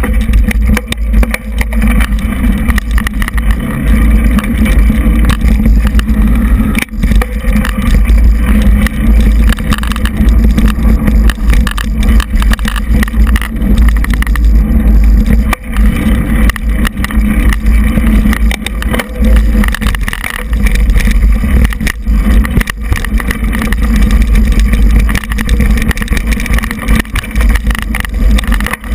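Steady low rumble of wind and riding noise on a GoPro camera mounted on a mountain bike, with frequent small knocks and rattles as the bike rolls over a dirt singletrack trail.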